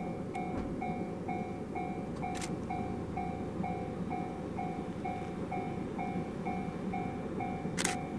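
A railway level-crossing alarm bell ringing steadily, about two strikes a second, signalling an approaching train, over a steady low rumble. Two short clicks, about two and a half seconds in and near the end.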